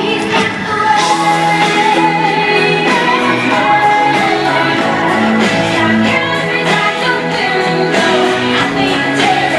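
Live concert music with a singer: a band playing a song with held sung notes over steady accompaniment.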